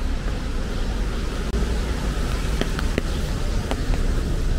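City street ambience in the rain: a steady hiss over a low rumble of traffic, with a few sharp ticks a little past the middle.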